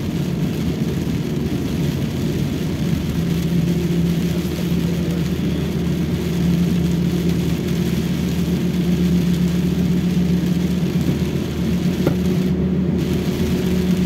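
Toyota Rush engine and tyre noise heard from inside the cabin while driving on a wet road: a steady engine drone with a held hum under an even wash of road noise.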